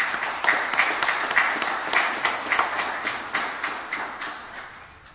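Small audience applauding, individual claps heard clearly, then thinning out and dying away over about five seconds.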